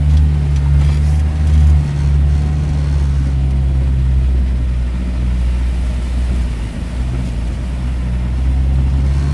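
A vehicle engine running at a steady speed, a low drone that eases off briefly about six to seven seconds in.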